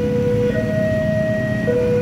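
Railway level-crossing alarm sounding an electronic two-tone warning, the pitch switching from low to high about half a second in and back to low near the end, over a steady low rumble. The alarm signals that a train is approaching.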